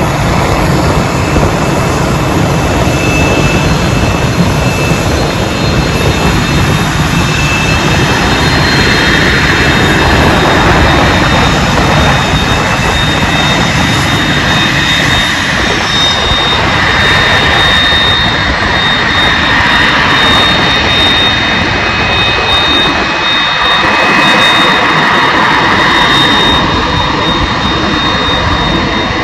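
Jet aircraft engines running while the aircraft taxis: a steady high whine over a loud rushing noise.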